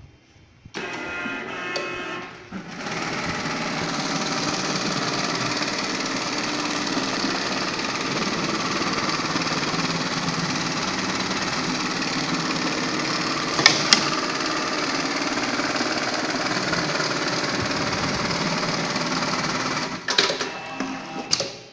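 Automatic jeans pocket-setting sewing machine stitching a denim back pocket. It starts about a second in, runs steadily at speed with a couple of sharp clicks midway, and stops near the end with a few clicks.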